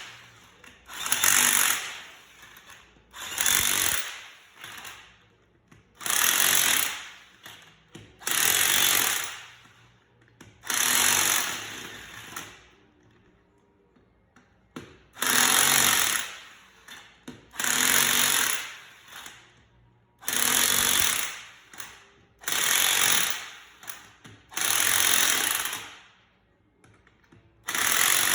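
A power impact wrench running the wheel's lug nuts on in about a dozen short bursts of hammering rattle, each about a second long and roughly two seconds apart.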